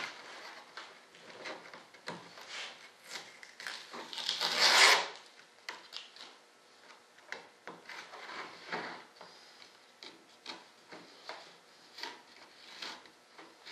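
Hand-trimming the edge of a vacuum-bagged foam model-airplane part: irregular scraping and rubbing strokes, with one long, loud stroke about four seconds in.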